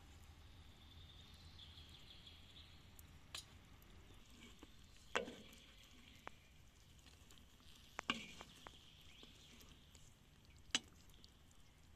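A handful of sharp, separate knocks and clatters of a slotted wooden spatula against a steel wok and copper plate as cooked calf's tongue is dished up, over a quiet background.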